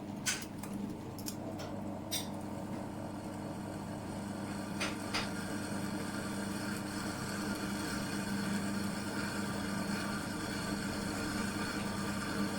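Steady machine hum with several tones, with a few sharp clicks and taps in the first couple of seconds and two more about five seconds in, as tools and a metal part are handled at a workbench.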